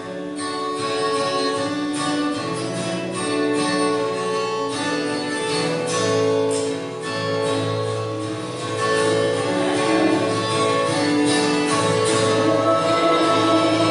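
Instrumental introduction to a worship song, with held chords and a bass part coming in about six seconds in. The music grows a little louder in the last few seconds, leading into the sung verse.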